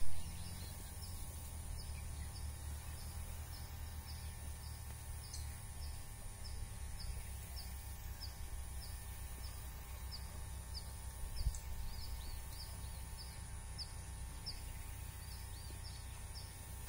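Open-field ambience by rice paddies: wind rumbling on the microphone, with a high, short chirp repeating evenly about twice a second. A single low bump comes about two-thirds of the way in.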